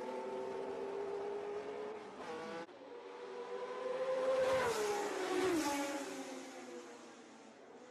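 Historic Formula One racing car engines running at high revs, with a sudden break about 2.7 seconds in. After it, an engine grows louder, its pitch falls around five seconds in, and then it fades away.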